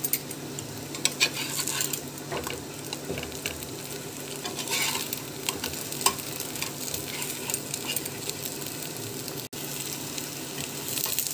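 Potato tikkis shallow-frying in oil in a pan: a steady sizzle with scattered sharp crackles and pops.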